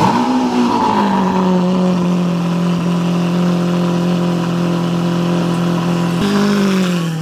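Lamborghini Aventador's V12 engine catching with a quick rev flare, then settling into a high, steady idle that drops a step about six seconds in.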